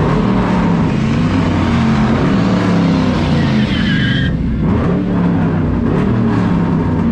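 A car engine revving up and down again and again, as for a burnout, under a loud broad hiss. A thin high squeal sounds for about a second in the middle and cuts off suddenly about four seconds in, along with much of the hiss, while the engine keeps revving.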